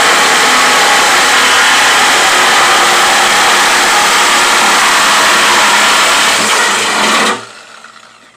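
Corded reciprocating saw cutting through a plastic fender flare on a pickup, running steadily at full speed. About seven seconds in it stops suddenly and the motor winds down.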